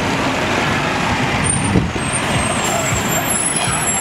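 Double-decker bus passing close by and pulling away, its engine running over street traffic. A thin high whine comes in about a second and a half in and holds.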